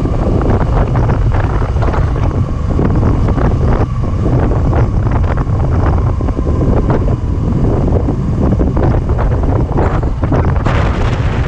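Steady wind buffeting on the microphone of a rider's camera aboard a slowly ridden Suzuki V-Strom 250SX motorcycle, with the bike's single-cylinder engine running beneath the low rumble. A brief louder hiss comes near the end.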